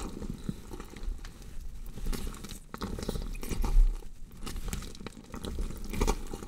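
Gory horror sound effect of a body being dissected: irregular crunching and tearing with dense crackles, and a deep low thump a little past halfway and another near the end.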